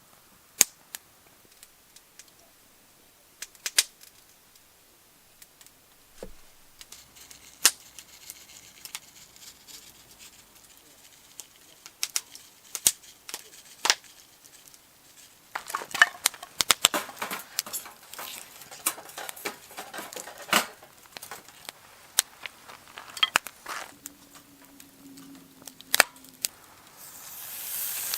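Scattered sharp clicks and snaps, busiest a little past the middle. Near the end a loud sizzling sets in: meat frying on hot metal over a campfire.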